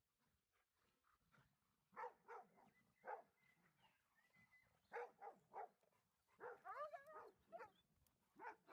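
Dogs barking in short calls, in twos and threes, with a run of higher, rising yelps about two-thirds through.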